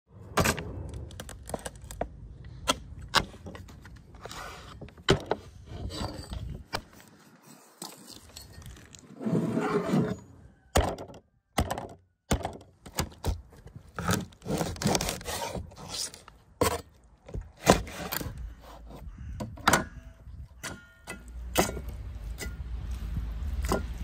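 Cleaver chopping a plucked pheasant on a wooden cutting board: irregular sharp knocks with scraping between them.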